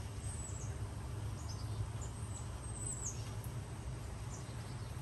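Outdoor garden ambience: a few faint, short, high bird chirps with falling pitch, over a low steady rumble.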